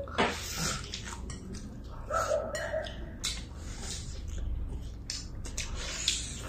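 People gnawing and chewing braised beef bones, with scattered clicks and taps of chopsticks against bowls. A short whine-like sound comes about two seconds in.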